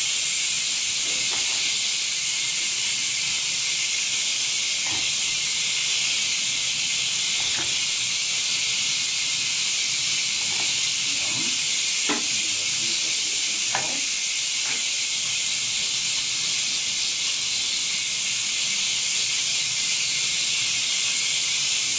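Kitchen tap running steadily into a stainless-steel sink, a constant hiss, with a few faint short scrapes and knocks.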